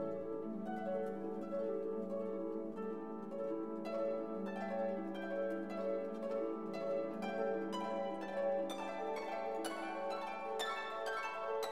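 Background music: a run of quick plucked string notes over a held low note.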